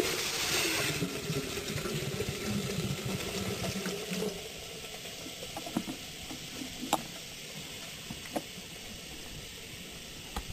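Water being poured into a container for about four seconds, then a steady faint hiss with a few light clicks.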